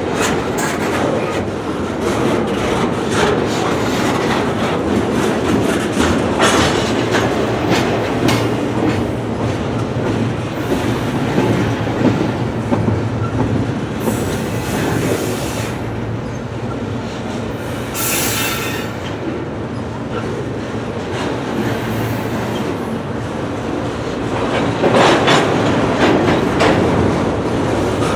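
Long freight train of intermodal container cars rolling past, its wheels clicking and clacking over the rail joints amid a steady rumble. About two-thirds of the way through, there is a brief high-pitched screech.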